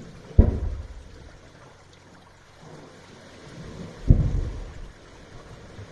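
Waves at high tide hitting a drainage pipe, heard from the stream end of the pipe: two deep booms, about 0.4 s and 4.1 s in, each dying away over about a second, with water rumbling and sloshing in between.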